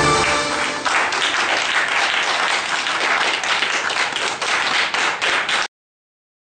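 Belly-dance music ends about a second in, and an audience applauds with steady clapping. The applause cuts off suddenly near the end.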